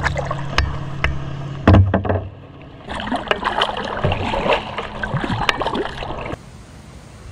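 Kayak paddling: the paddle blades dip and splash and water drips, with scattered clicks and one louder thump a little under two seconds in. The splashing stops abruptly a little after six seconds.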